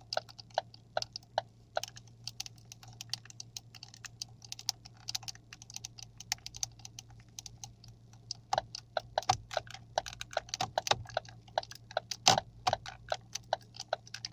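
Ford Focus 3 turn-signal stalk creaking and rustling with irregular crackly clicks as it is gripped and worked, like it is made of foil. It grows busier and louder about halfway through. The crackle comes from the stalk itself whenever it is touched, an annoying fault the owner wants to cure.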